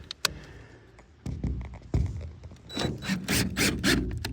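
Handling noise from screws and a cordless drill: a couple of sharp clicks, then knocks and scraping that get busier toward the end as a deck screw is readied.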